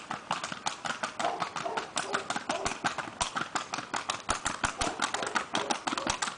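A mare's hooves striking hard ground in a fast, even, rapid clatter of many beats a second.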